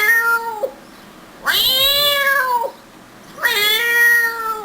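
A man imitating a cat: three drawn-out meows, the middle one the longest, each rising and then falling in pitch.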